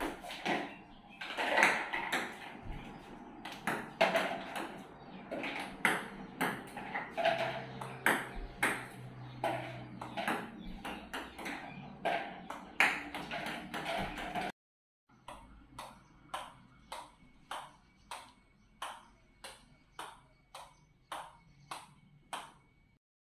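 Table-tennis balls clicking off paddles and bouncing on the table at an irregular pace. About two-thirds of the way in the sound cuts out briefly, then a ping-pong ball is bounced steadily on a rubber paddle, about two taps a second.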